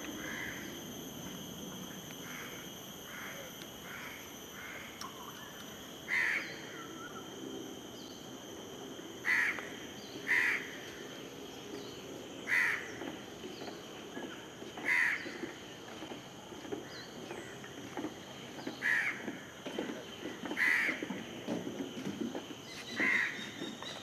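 Chestnut-winged cuckoo giving its loud call: short, harsh notes repeated at irregular gaps of one to a few seconds. Softer notes come in the first few seconds, over a steady high-pitched drone.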